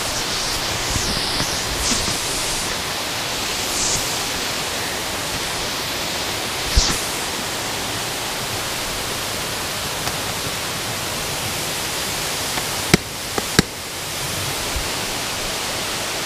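Steady rushing of creek water, a continuous even hiss. A few sharp knocks cut through it, one about seven seconds in and two close together near the end.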